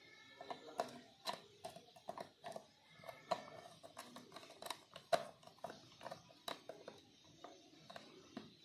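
Screwdriver turning a screw terminal on a plastic relay socket to clamp a wire: a run of small, irregular clicks and scrapes.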